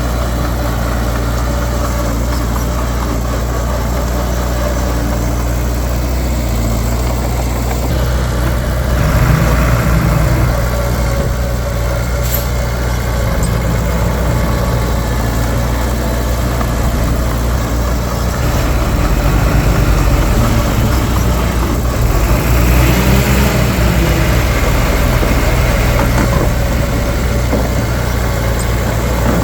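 Heavy diesel engine of earthmoving machinery running steadily, swelling louder under load about a third of the way in and again for several seconds later on.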